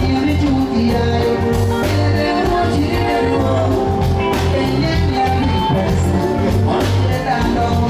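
Live band music with a singer: a steady bass line and drum beat under a sung melody, played loud.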